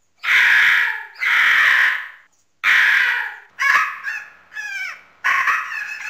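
Pelican calling: a run of about six hoarse, noisy calls. The first three are long, about a second each; the last three are shorter and fall in pitch.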